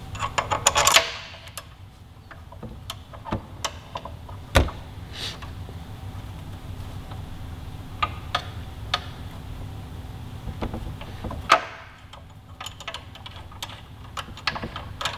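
Metal clicks and knocks from a Brembo front brake caliper being slid over the disc rotor and fitted to the fork, then its mounting bolts being started by hand. There is a rattling cluster of clicks in the first second and a single sharp knock about four and a half seconds in.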